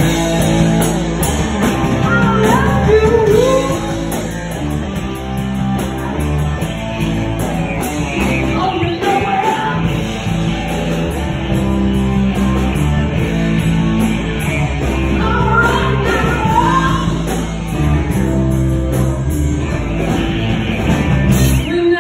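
Live rock band playing loud, with electric bass and drums and a singing voice over them.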